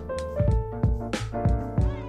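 Background music with a steady beat and held keyboard-like notes.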